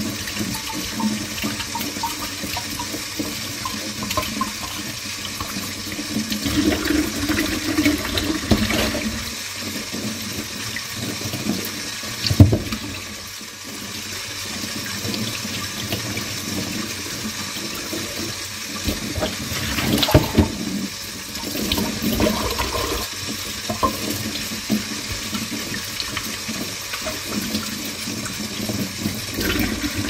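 Dishes being washed by hand: a kitchen tap runs steadily into the sink, with scattered clinks and knocks of crockery. The loudest knocks come about twelve and twenty seconds in.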